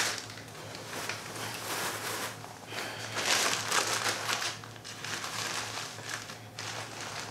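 Plastic processing cap crinkling and rustling under the hands as a heat cap is pulled on over it and pressed into place. The rustling comes in irregular handlings and is heaviest about three to four seconds in.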